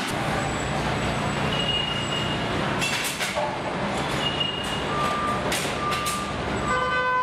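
Engine assembly-line factory noise: a steady machinery hum with short electronic beeps, a few higher-pitched ones early and lower ones repeating in the second half, and several brief sharp clacks and hisses from tools.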